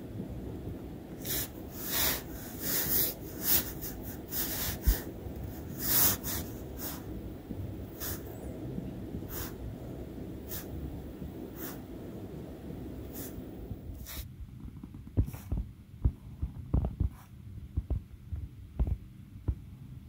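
Fine-tip Sharpie pen drawing on paper: a run of short scratchy strokes and taps as it traces squiggly lines, over a steady low hum. About fourteen seconds in, the hum drops away suddenly and the strokes turn to softer low thuds and ticks.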